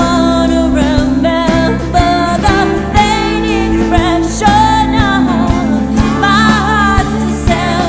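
Alt-country band playing a song: a sung vocal melody over sustained bass and guitar tones, with a steady drum beat.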